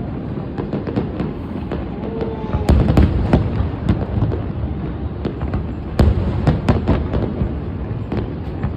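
Fireworks going off: a continuous low rumble of booms with many sharp cracks and pops, the loudest bangs about three seconds in and again about six seconds in.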